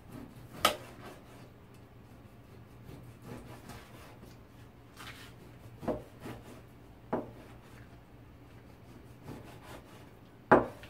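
A dull Chinese cleaver slicing pork belly on a plastic cutting board: soft scraping strokes through the meat, with the blade knocking on the board a few times, loudest near the end. The cook says the cleaver needs sharpening.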